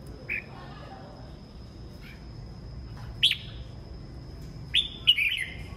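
Caged red-whiskered bulbuls giving short, sharp chirps: one about a third of a second in, a louder one about three seconds in, and a quick cluster of several near the end.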